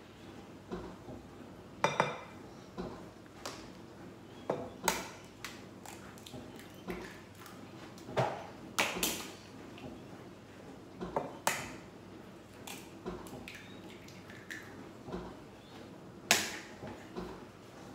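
A whisk clinking and scraping against a glass jug while pancake batter is mixed, with scattered sharp clinks and knocks of kitchen things being handled and set down on the bench.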